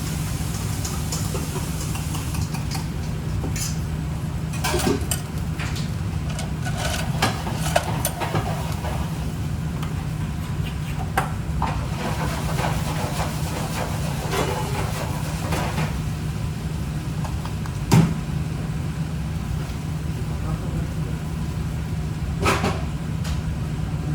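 Kitchen cooking sounds: a utensil stirring and knocking in a pan over a steady low hum, with a sharp clack about 18 seconds in.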